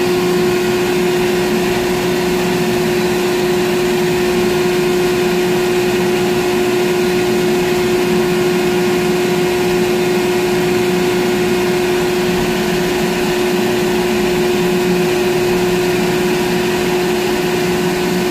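Ship's deck crane machinery running steadily, heard inside the operator's cab: a constant hum with one strong whining tone.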